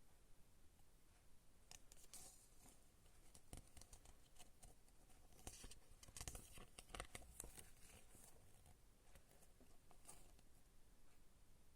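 Faint rustling and scattered clicks of a CD and its packaging being handled, busiest around the middle.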